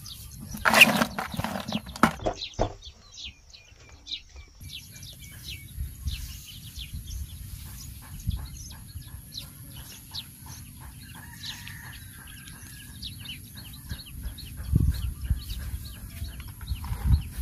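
Freshly caught fish thrashing and flapping against the sides of a plastic bucket for the first couple of seconds. Then comes a long stretch of scattered rustling and clicks as a green mesh fishing net is handled over grass, with a couple of low thumps near the end.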